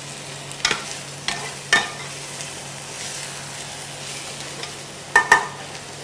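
Chopped red cabbage and apple sautéing in butter and oil in a steel frying pan: a steady sizzle, stirred with a metal ladle that clinks against the pan three times in the first two seconds and twice close together near the end.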